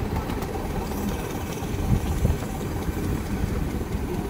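Miniature railway train rolling along its track, heard from aboard a carriage: a steady rumble of wheels on the rails, with a couple of louder knocks about two seconds in.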